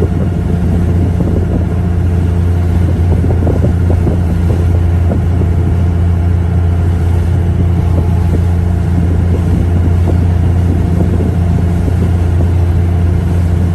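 An engine running at a steady speed, a loud, even low drone that holds one pitch throughout.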